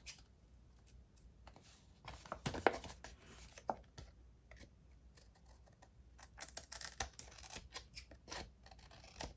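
Scissors snipping off excess paper and ribbon ends along the edge of an envelope page: a series of short, quiet snips. They come in a cluster about two to three seconds in and another around six to seven seconds in, with single snips between.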